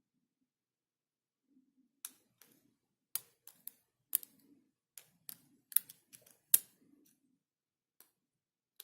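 Lock pick and tension wrench working the pins of a Society Brass lock: a dozen or so sharp, irregular metal clicks starting about two seconds in.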